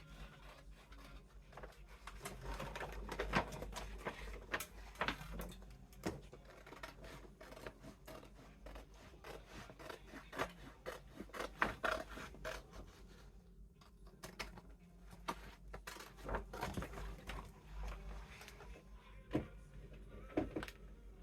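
Scissors cutting along the sides of a large gift bag: irregular snips and clicks of the blades, with the bag rustling and scraping as it is handled, easing off briefly about two-thirds of the way through.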